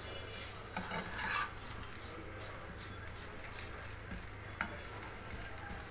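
Moong dal dosa frying in a nonstick pan with a steady faint sizzle, while a slotted spatula scrapes under it and folds it over, loudest about a second in, and taps once against the pan later on.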